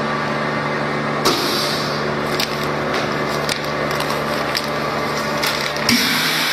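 Double-chamber vacuum packaging machine running: a steady pump hum with a low tone, with a sudden hiss of air about a second in and another near the end, and scattered sharp clicks.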